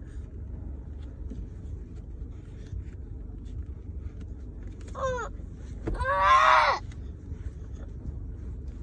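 Toddler whining in a car seat: a short high whine about five seconds in, then a louder, longer whining cry, over a steady low rumble of the car cabin.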